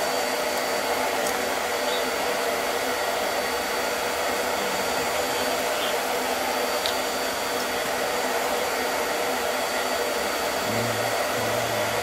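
Steady fan-like blowing noise, with a few faint ticks.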